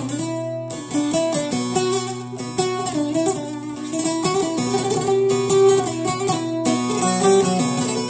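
Long-necked bağlama (Turkish saz) played solo: a quick melody of plucked notes over a steady low drone that drops out about halfway.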